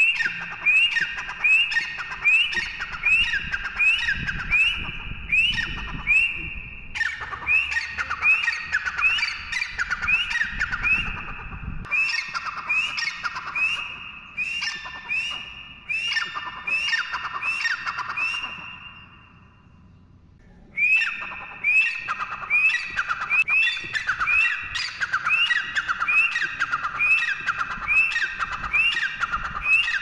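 Grey francolin (teetar) calling: long runs of loud, shrill, rhythmic notes, about two a second, each flicking up and dropping away. The runs break off for a moment twice and pause for about two seconds past the middle before starting again.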